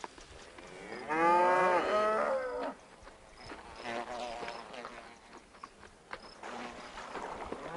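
Cattle mooing: one long, loud moo about a second in that lasts about a second and a half and drops in pitch at the end, then fainter lowing.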